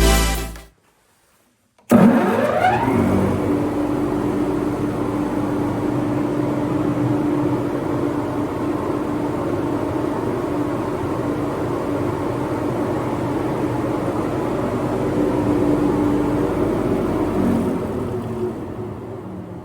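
Single-bag sawdust extractor with a 3 kW electric motor and a six-blade metal fan impeller starting abruptly. Its pitch rises for about a second as it spins up, then it runs with a steady whirring hum. Near the end it fades and its pitch drops as it runs down.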